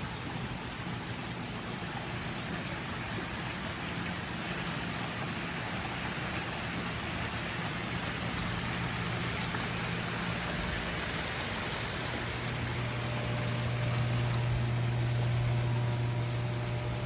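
Water rushing and spraying steadily inside a koi pond's rotary drum filter, over a low mechanical hum. About twelve seconds in the hum grows louder and steadier, with faint higher tones joining it.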